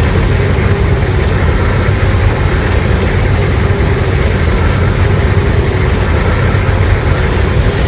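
A Godzilla (2014) monster sound effect: a loud, sustained, deep rumble of noise with faint steady tones above it and no clear roar pitch.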